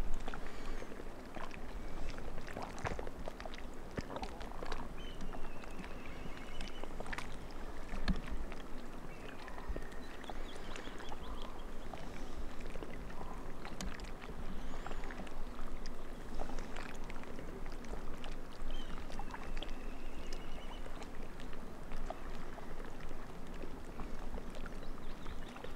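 Small waves lapping, with frequent light splashes and clicks of water.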